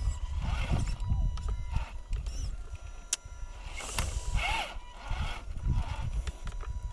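Wind buffeting the microphone, with the RC crawler truck's electric drive giving short whines in bursts and a sharp click about three seconds in as it struggles to climb the rock.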